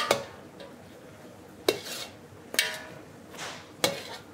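A spoon knocking and scraping against the side of a large stainless-steel stockpot as meat and onions are stirred, a few irregular metallic clinks about a second apart.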